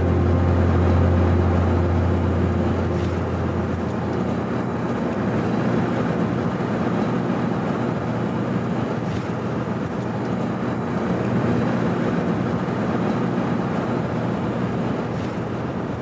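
Steady road and engine noise inside a moving car, with a low engine drone that is strongest in the first few seconds and then eases.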